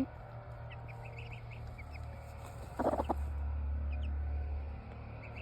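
Baby birds peeping softly in short high notes, with a brief lower clucking call about three seconds in.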